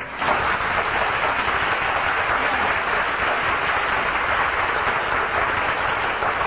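Studio audience applauding at the end of a comic song on a vintage radio broadcast, a dense steady clapping that eases slightly near the end.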